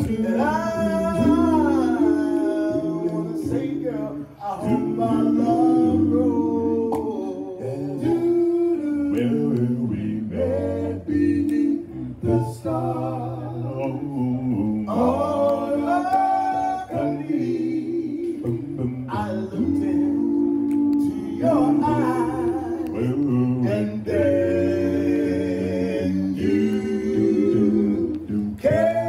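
A cappella male vocal group singing doo-wop close harmony: a lead voice over sustained backing harmonies, amplified through microphones.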